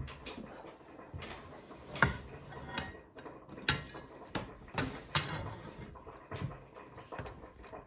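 Ceramic bowls being set down and moved on a wooden table: a handful of separate sharp knocks and clinks about a second apart, the loudest about two seconds in.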